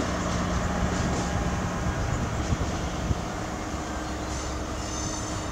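Class 43 HST power car's diesel engine running under power as the train pulls away, a steady drone with a low hum. Two sharp knocks come about two and a half and three seconds in.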